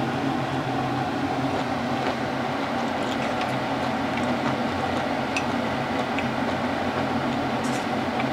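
Steady whirring hum of a kitchen range hood's extractor fan, with a few faint light clicks.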